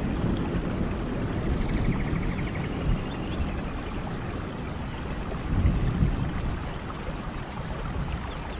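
Steady rain with a heavy low rumble that swells and eases, with faint animal calls over it: a rapid pulsed trill about two seconds in and quick runs of high chirps around the middle and near the end.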